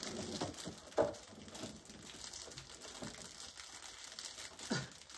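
Clear plastic gift wrapping crinkling and rustling as it is handled and worked at to get it open.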